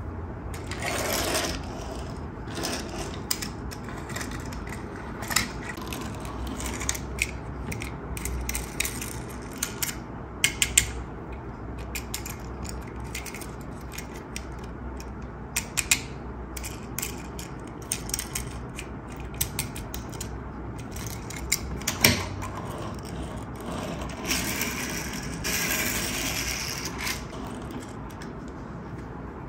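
Plastic toy track pieces and parts being handled, with irregular clicking and rattling and a few sharper snaps, the loudest about 22 seconds in. Short stretches of rustling come about a second in and again near the end.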